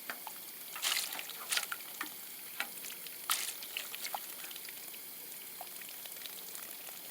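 Water pouring and trickling onto garden soil and plants, a steady faint hiss with scattered splashes and drips. It is being run off and left to overflow to flush out sun-heated water until it comes out cool.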